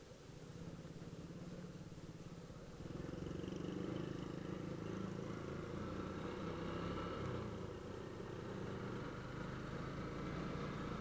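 A motorcycle engine running as the bike rides along, louder and fuller from about three seconds in as it picks up speed, then holding steady.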